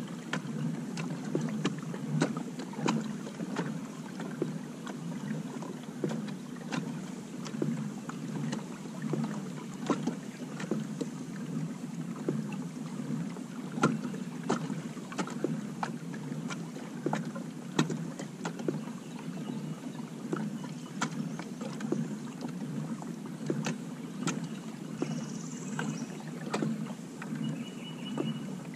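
Native Manta Ray 12 Propel pedal-drive kayak under way on a river: water washing along the hull over a steady low churn, with a light knock about once a second. A bird calls briefly near the end.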